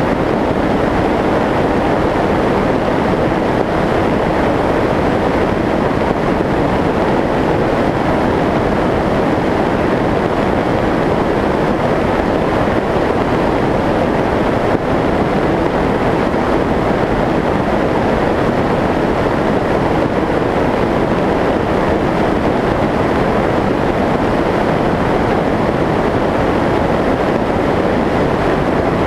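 Steady rush of airflow and propeller noise from the onboard camera of a Skyshadow S800 FPV flying wing in cruising flight, even and unbroken throughout.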